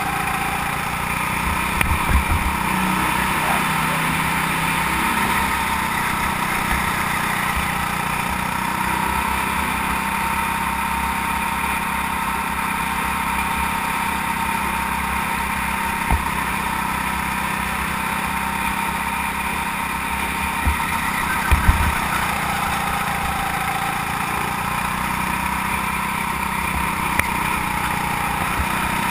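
Go-kart engine heard from on board, running steadily at speed; its pitch drops about three-quarters of the way through, then climbs again. A few short dull knocks come about two seconds in and again around twenty-one seconds in.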